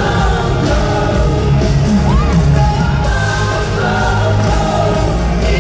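Live pop song at an arena concert, a female singer over a full band through the PA system, recorded from the stands.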